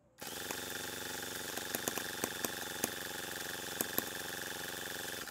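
Toyan FS LF200 miniature two-cylinder four-stroke gasoline engine being spun by its electric starter, a steady whirring with scattered sharp pops as it tries to fire but never catches. It cuts off suddenly near the end. The engine will not start, which the owner thinks may come from the fuel premix or the carburettor tuning at altitude.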